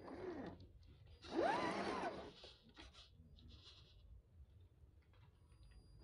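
Small electric motor of an MN86KS 1/12-scale RC crawler whining up and falling back in pitch with short throttle blips as it drives through mud. The loudest blip comes about a second and a half in, with a hiss of the tyres slipping in wet mud.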